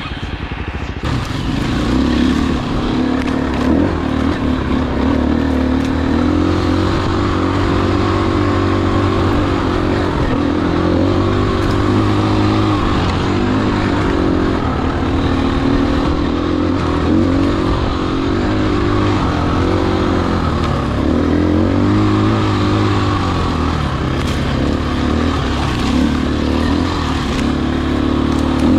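Dirt bike engine running under load, its pitch rising and falling over and over with the throttle.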